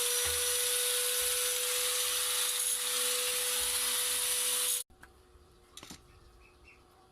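Homemade mini lathe, driven by a repaired angle grinder motor, running with a steady whine and a harsh scraping hiss of material being cut. It cuts off abruptly about five seconds in, leaving faint bird chirps.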